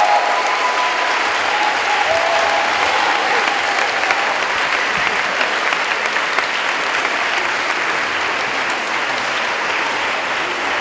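A large audience of children and adults applauding steadily, with a few voices calling out in the first few seconds.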